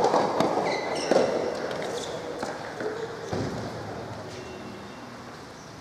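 Soft tennis rally in a large echoing hall: sharp pops of rackets hitting the soft rubber ball right at the start and about a second in, with short shoe squeaks on the court, then the echo dies away.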